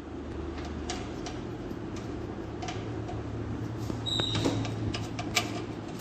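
Scattered light clicks and taps of desktop PC parts and screws being handled, over a steady low hum, with a brief high squeak about four seconds in.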